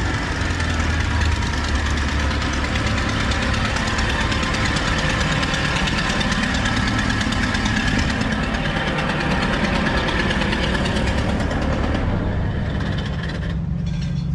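An engine running steadily nearby, with a rapid knocking pulse. About two seconds before the end the higher hiss fades, leaving a low steady drone.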